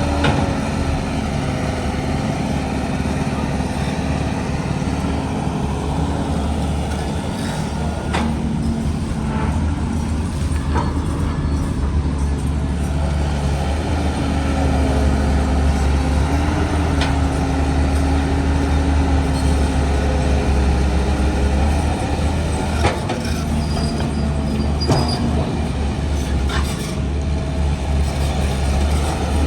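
Diesel engine of heavy earthmoving machinery running steadily, with a few sharp knocks scattered through.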